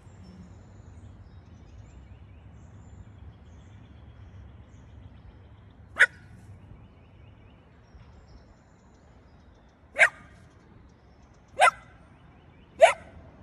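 A dog barking four short, sharp times: once about six seconds in, then three barks close together near the end.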